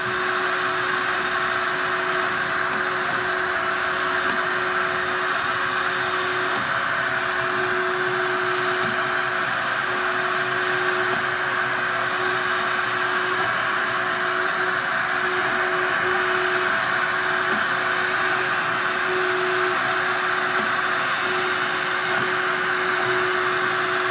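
Chovery CL.1 window-cleaning robot running on a glass pane: its suction fan makes a steady whirring hiss with one constant hum note, holding it to the glass as it crawls. It is working as it should.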